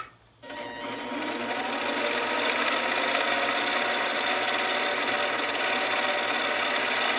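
Mini lathe switching on about half a second in and running steadily, coming up to speed over the next couple of seconds, while a cloth with polishing compound rubs against the spinning aluminum workpiece to polish it to a mirror finish.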